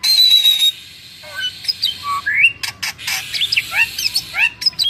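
Bali myna calling: a harsh loud call at the start, then a run of short rising notes, about two a second.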